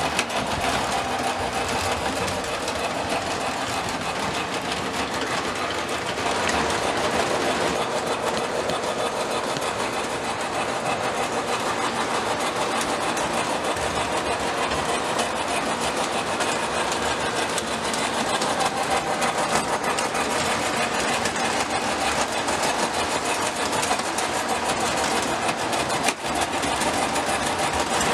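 Lionel O27 model trains running on three-rail tubular track: a steady whir of the locomotive motors with the rattle of wheels on the rails.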